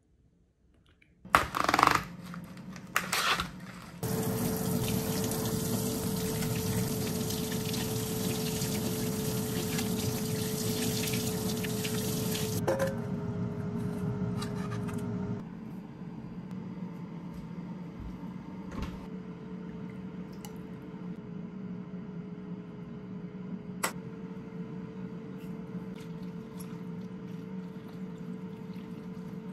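Kitchen tap water running hard into a stainless steel sink as chicken is rinsed in a mesh strainer, after a few knocks about a second and a half in; the water stops about halfway through. A quieter steady hum with an occasional light click follows.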